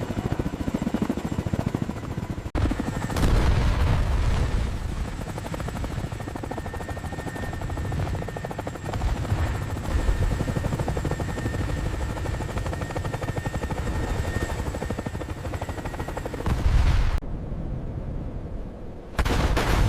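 Helicopter running with a fast rotor chop over a low rumble and a thin steady whine, with heavy low booms about three seconds in and again near the end.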